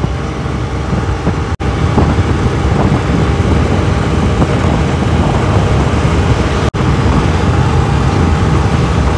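Wind rush on the microphone and road noise from a Honda Activa 110cc scooter running at full throttle at highway speed, its single-cylinder engine under load up a slight incline. The sound drops out for an instant twice.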